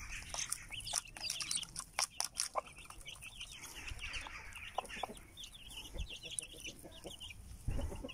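Chicks peeping rapidly and continuously as they feed with a mother hen, with a few sharp taps of beaks pecking at the plastic feed plate in the first couple of seconds.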